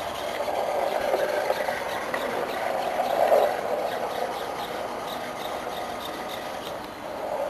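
Geared hobby servos (Hitec HS-311, modified for continuous rotation) driving a small two-wheeled robot, running with a steady mechanical whir that swells a little about three seconds in.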